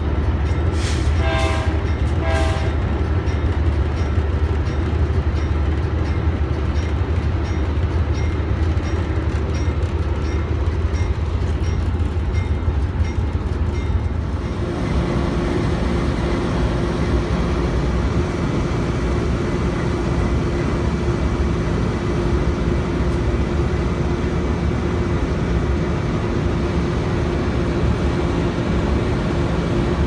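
Diesel locomotive running down the track. The engine is a steady low drone heard inside the cab, with a few short tones in the first seconds. About halfway the sound changes to the locomotive heard from outside, a steady hum with a held tone.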